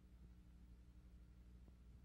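Near silence: a faint steady low hum with a couple of faint clicks.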